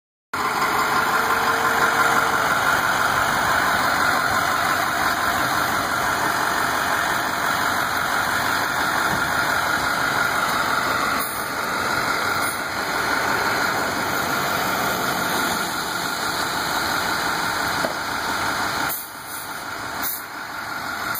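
International semi-truck limousine's diesel engine idling steadily.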